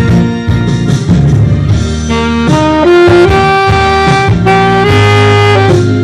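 Saxophone playing a slow melody of long held notes over a backing track with a bass line.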